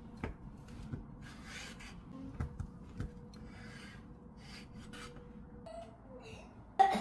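Chef's knife slicing a cooked chicken breast on a cutting board: soft knocks as the blade meets the board, with short scraping sounds of the cuts. A single louder knock comes just before the end.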